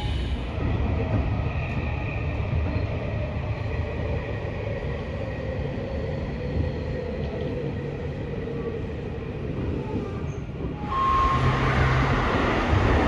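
Yokohama Minatomirai Railway Y500 series electric train running, heard inside the passenger car: a steady low rumble from wheels and track with a few faint tones from the drive. About eleven seconds in, the noise gets louder with a broad rush.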